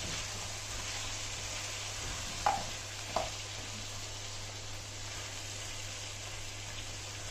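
Chicken sizzling as it fries in desi ghee in a pan, with frozen tomato cubes just added. Two short clinks sound about two and a half and three seconds in.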